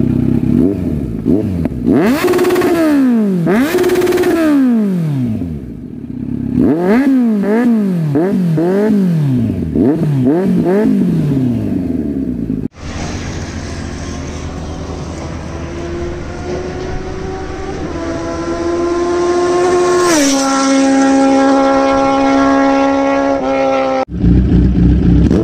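Kawasaki Z900 inline-four with an Akrapovic exhaust, revved in a run of quick blips that rise and fall back to idle. After a cut about halfway through, a steadier engine note is held at several levels, stepping up twice and then dropping.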